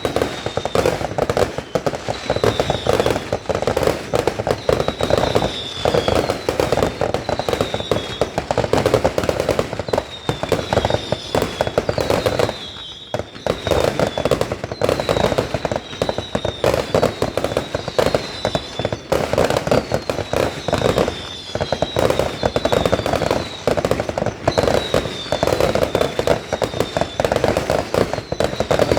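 Fireworks going off continuously: dense crackling and popping, with a short falling whistle about every second and a half and a brief lull near the middle.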